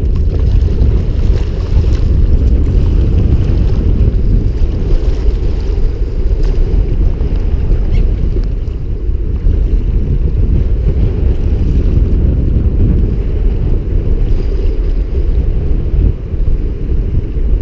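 Strong wind buffeting the microphone of a GoPro action camera mounted on a kayak: a loud, steady low rumble, with waves washing around the boat.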